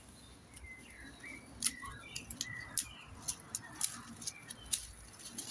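Dry hydrangea stems being pruned by hand: a scattered run of short, sharp clicks and snaps as dead wood is cut and handled. Faint bird chirps can be heard behind.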